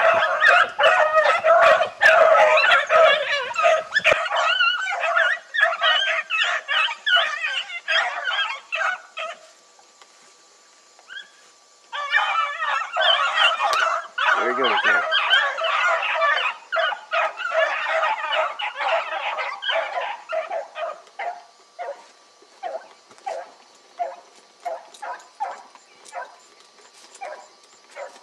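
Beagles baying on a rabbit's trail, many rapid, overlapping yelps and bays: the hounds giving voice on the track. The calls stop for about two seconds roughly ten seconds in, start again thickly, then thin out to scattered single bays near the end.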